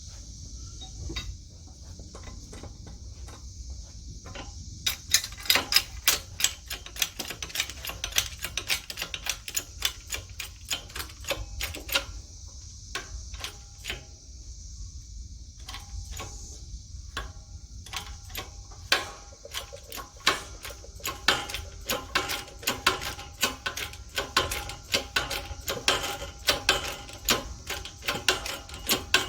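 Hammer blows on steel, several a second, each ringing briefly, as a rusted 1-inch axle stub is driven out of a cast iron wheel. The blows start about five seconds in, ease off for a few seconds in the middle, then come thick and steady again.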